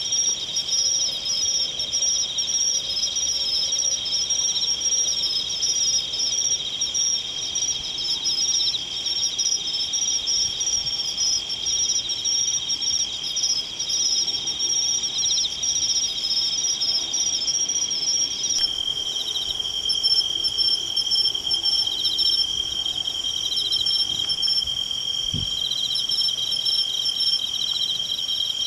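Evening chorus of insects trilling, a steady high-pitched chirring with at least two singers at different pitches. The blend changes abruptly about two-thirds of the way in.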